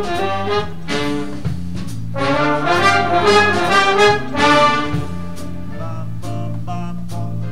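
Instrumental jazz-style music, with horns playing the melody over a steady bass line, swelling louder from about two to five seconds in.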